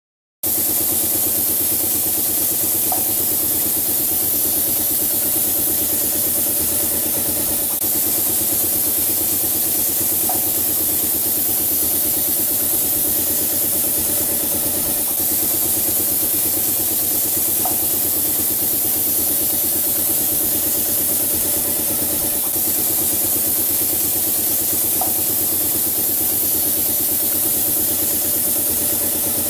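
Automatic wall-painting machine running, its compressor-fed spray gun working: a steady mechanical hum with a strong hiss, starting abruptly about half a second in and unchanging after that, with a faint short blip about every seven seconds.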